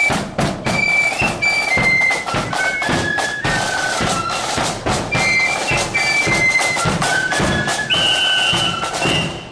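Marching flute band playing a tune in unison on flutes, over drum beats in steady march time. The melody steps between held high notes and ends on a long high note.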